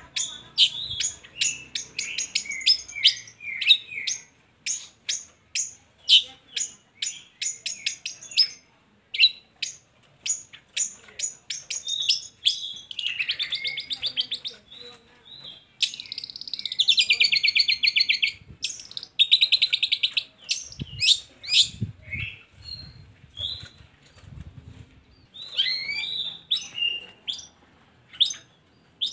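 Long-tailed shrike (cendet) singing: a fast, varied run of sharp high chips and short whistles, broken by long harsh buzzy rattles about halfway through.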